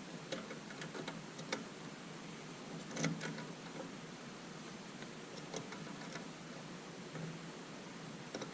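Scattered light clicks and taps, the loudest about three seconds in, over a steady faint hiss.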